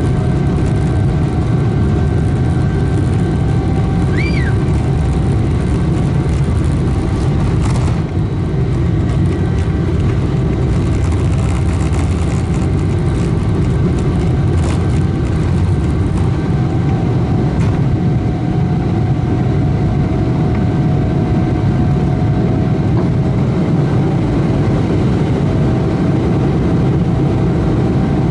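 Cabin noise of a Boeing 777-300ER at takeoff thrust: the GE90 engines give a loud, steady drone with constant fan tones. Knocks and rattles from the wheels on the wet runway run through the first two-thirds and thin out as the aircraft lifts off and climbs.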